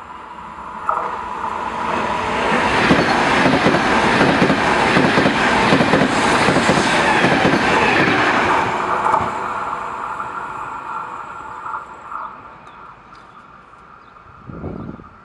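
A train passing through the station, heard from the underpass: the rumble and wheel clatter swell over the first few seconds, stay loud until about nine seconds in, then fade away. A short, lower sound comes near the end.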